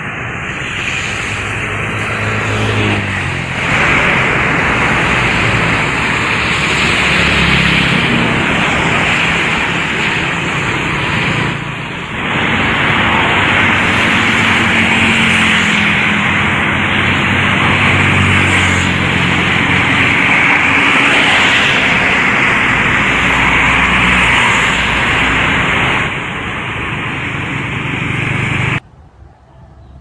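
Motorcycles and cars driving on a flooded, wet road: engines running over a steady hiss of tyres and water, in several clips joined by abrupt cuts. The sound drops away sharply near the end.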